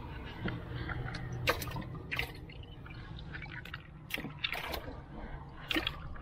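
Wooden paddle splashing and sloshing water beside a wooden canoe, in a handful of irregular strokes.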